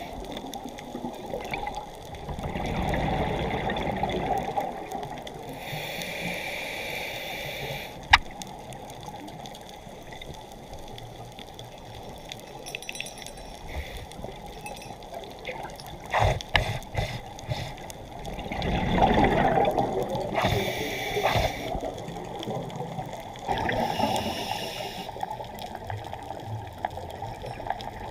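Muffled underwater sound through a camera housing: a scuba diver's regulator bubbling and hissing in swelling bursts every several seconds as they breathe. There is one sharp click about eight seconds in and a few knocks a little after halfway.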